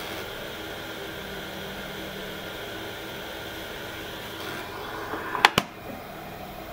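Mosaic Palette 2 multi-filament splicer running: a steady mechanical whir and hum. This is its ordinary working noise, not very loud but enough to carry into a recording. Near the end come a couple of sharp plastic clacks as its white cover is put back on.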